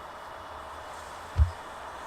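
Steady outdoor ambient hiss with a faint steady high tone above it. A brief low thump, the loudest sound, comes a little under halfway through.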